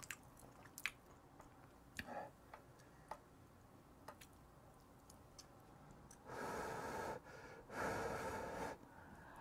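A person eating close to the microphone: a few faint small clicks of eating, then near the end two loud breathy rushes of about a second each as he takes and works a mouthful.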